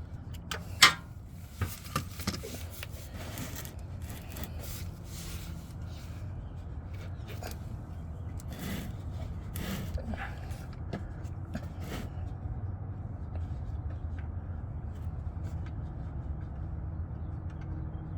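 A 17 mm socket wrench working an engine oil drain plug loose: a few sharp metal clicks in the first seconds, then scattered fainter clicks and scraping. After about twelve seconds only a steady low hum remains.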